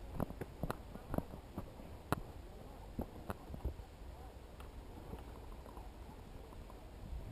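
Footsteps crunching on dry grass and brick rubble with gear rustling, an uneven run of short crunches that thins out after about three seconds, and one sharp click about two seconds in.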